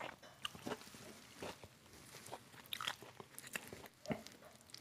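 Close-up chewing of a crisp battered fritter, with irregular crunches.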